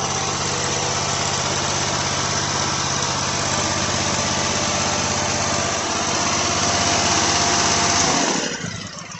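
Kawasaki FH680V V-twin mower engine running steadily and smoothly, freshly valve-adjusted, with no valve clicking. It cuts off about eight seconds in and the sound dies away.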